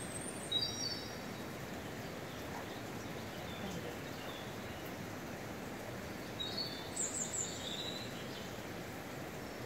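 Steady rush of flowing river water, with a small bird chirping in short bursts twice: just after the start and again about seven seconds in.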